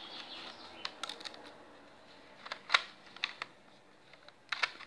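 Light, scattered plastic clicks and knocks from Lego bricks as a brick-built Glock 43 pistol model is handled, about eight clicks spread over a few seconds with the loudest near the middle.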